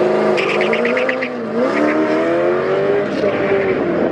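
Car engines accelerating hard on a drag strip, the pitch climbing and dropping back at upshifts about one and a half and three seconds in. A quick run of short high chirps comes in the first second or so.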